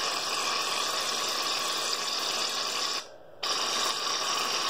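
Aerosol shaving cream hissing out of the can in a long steady spray, a short break just after three seconds, then a second spray.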